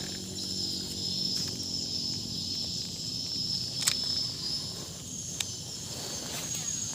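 Insects in the surrounding forest buzzing in a steady high-pitched drone, the pitch stepping up a little about five seconds in, with two sharp clicks partway through.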